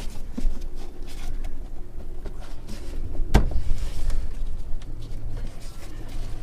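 Airbox being pressed and seated back into a car's engine bay: scattered handling knocks and clicks, with one sharp knock about three and a half seconds in.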